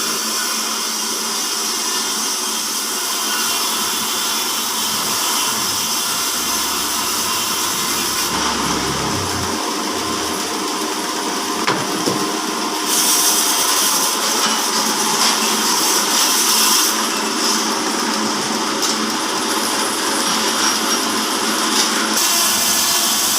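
Horizontal band sawmill running steadily, its band saw blade working through timber; the hiss turns harsher and brighter about halfway through, then settles back near the end.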